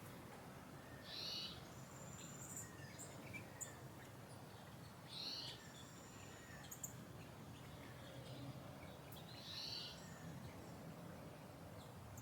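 A bird gives a short, high call three times, about four seconds apart, with fainter high chirps from other birds in between, over a steady low background rumble.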